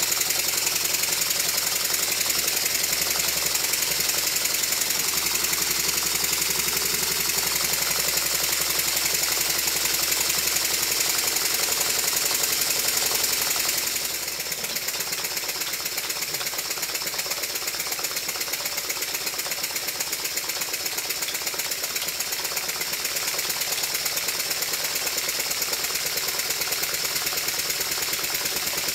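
Stuart triple expansion model steam engine running on compressed air while being run in: its pistons, rods and valve gear clatter in a fast, even beat. It drops slightly in level about halfway through.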